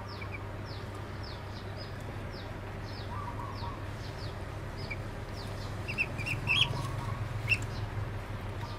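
Duckling peeping over and over in short, high, falling peeps, about two to three a second, with a few louder peeps about two-thirds of the way through. A steady low hum runs underneath.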